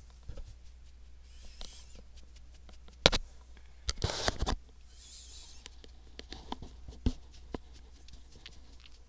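Handling noise on a headset microphone: soft rustles and taps from hands and hair brushing it, with a sharp knock about three seconds in and a scratchy rustle about a second later as the mic boom is moved. A steady low hum runs underneath.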